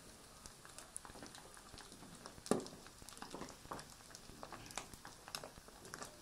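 Scattered small crackles and pops, one louder about two and a half seconds in, from pieces of fat rendering in a hot pan over a wood fire.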